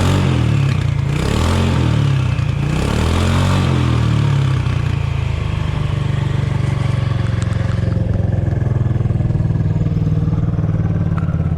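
Kymco People scooter's engine and exhaust revved a few times with the throttle, the pitch rising and falling, then settling into a steady idle for the second half. Its carburetor has just been adjusted to bring down a too-fast idle.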